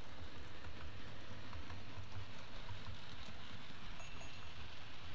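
Model railway steam locomotive and its train of vans running along the track: a steady rumble of wheels on rail.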